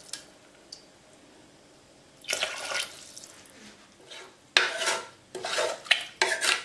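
A ladle stirring rice, tomato and water in a pressure cooker pot: a short swish a couple of seconds in, then from about halfway a run of scrapes and knocks against the pot's metal sides.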